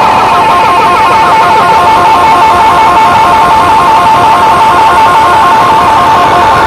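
Loud music played through a DJ sound system: a distorted, guitar-like electronic tone with a fast, even warble, several pulses a second, held steady throughout.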